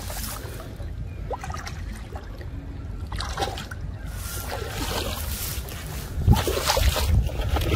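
Water trickling and splashing as a fishing net is hauled in by hand through shallow pond water, in several bursts that grow louder near the end. A low rumble lies under it throughout.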